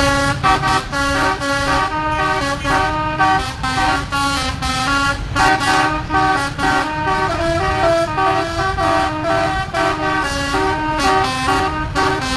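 Bus telolet horn, a multi-tone air horn, playing a tune of quickly changing notes without a break, over the low rumble of road and engine noise.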